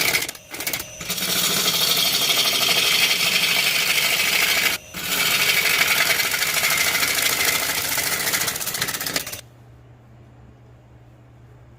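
Power tool working wood, running loud with a couple of brief dips before cutting off sharply about nine seconds in; a faint steady low hum follows.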